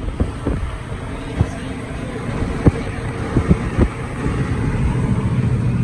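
Car interior road noise while driving: a steady low rumble of tyres and engine, with a few short knocks about a second and a half to four seconds in.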